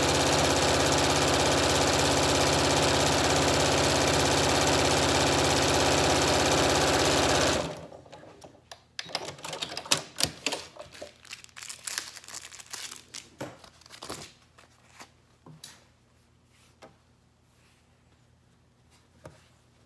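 Janome electric sewing machine running at a steady speed for about eight seconds, stitching bias tape trim onto fabric, then stopping abruptly. After it come scattered light clicks and rustles.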